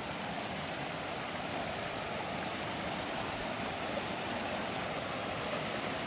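River water running over rocks, a steady rush.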